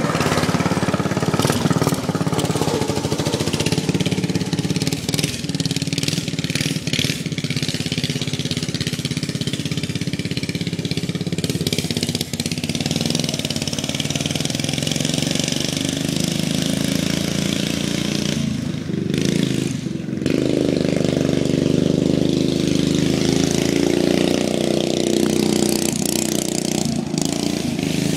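Racing lawnmower's small engine running, its speed rising and falling, with a brief drop about two-thirds of the way in before it runs up again.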